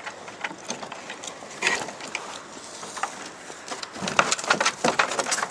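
Chickens scrabbling and sliding down a steep coop exit: a series of scratchy clicks and scrapes, one cluster a little under two seconds in and a dense run near the end.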